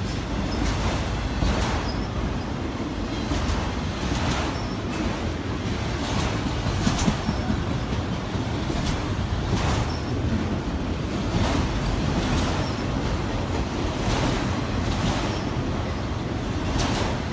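Freight train of autorack cars rolling past close by: a steady rumble of steel wheels on rail, with repeated clacks from the wheels at uneven intervals.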